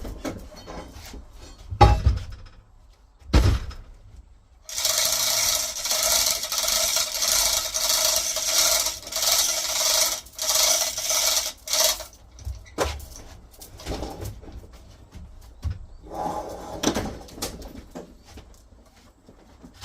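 Chain-hoist haul of a heavy side-by-side refrigerator up a stair step: two knocks, then about seven seconds of loud, grating metallic rattling in bursts with short pauses, then lighter knocks and rattles.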